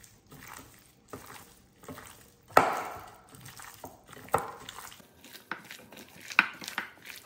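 Raw chicken pieces being mixed by gloved hand in yoghurt marinade in a glass bowl: wet squelching and shuffling with several sharp knocks against the glass, the loudest about two and a half seconds in.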